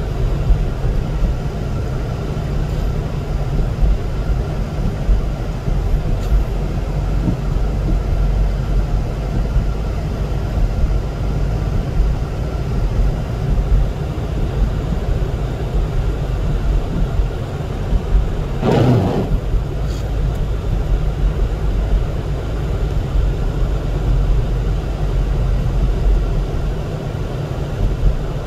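Road and engine noise inside a car driving on a snow-covered highway: a steady low rumble, with one brief louder noise about two-thirds of the way through.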